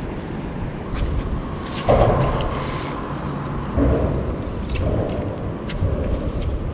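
Road traffic rumbling on the bridge overhead, a steady low rumble with two louder swells from vehicles crossing, about two and four seconds in.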